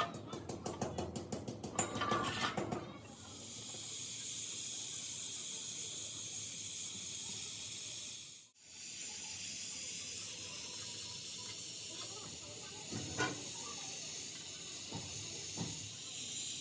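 Rapid, even clicking and a few knocks for about three seconds, then a steady high-pitched hiss of a spray jet. The hiss drops out suddenly about halfway through and resumes.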